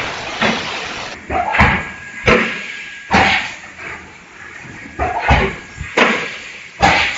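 Plastic-bottle blow-moulding machine cycling: a series of sharp pneumatic clunks and bursts of air, about six, at uneven intervals of roughly a second.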